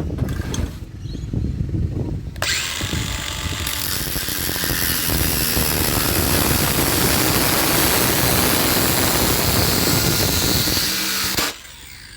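Power tool with an abrasive cutting disc cutting through copper wire strands on a brass fitting: a loud, steady hissing grind that starts about two seconds in and stops abruptly near the end.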